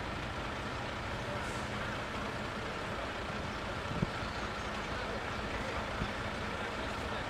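Diesel engines of parked fire engines running steadily, with a short knock about four seconds in and a smaller one about two seconds later.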